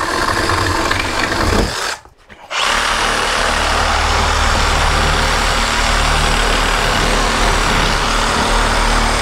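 Handheld power tool running at full speed during wall demolition; it stops for about half a second around two seconds in, then starts again and runs steadily.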